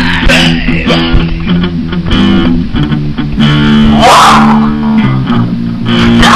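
Emo rock song played over the footage: a band track with electric guitar chords and bass guitar.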